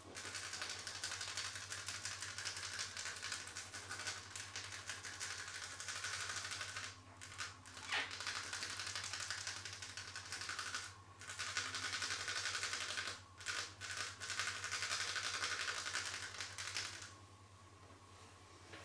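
Hands massaging close to the microphone: a dense, rapid run of fine clicks and scratching that pauses briefly a few times. There is one sharper click near the middle, and the sound stops about two seconds before the end.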